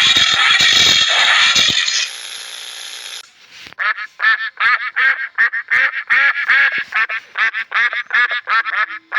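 A loud, even noise fades after about two seconds. Then a duck quacks in a rapid run of short quacks, about four a second, to the end.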